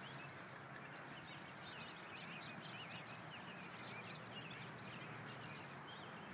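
Faint outdoor ambience: small birds chirping repeatedly in quick, high calls over a steady low background noise.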